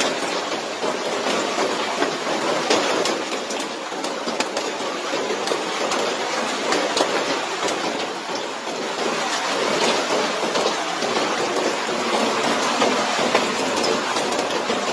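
Hailstorm: hailstones pelting roofs, courtyard and balcony tiles, a dense steady hiss shot through with many sharp ticks of individual stones striking.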